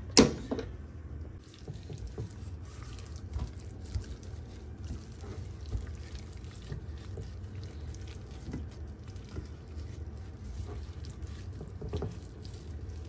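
A short, loud sputter from a squeezed mustard bottle right at the start, then a gloved hand working mustard into raw chicken breasts in a glass baking dish: faint wet squishing and light clicks over a low, steady hum.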